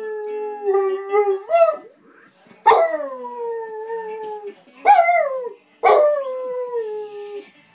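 American Staffordshire terrier howling: a held howl that rises at its end, then three more that each start high and slide down in pitch, the second of them short.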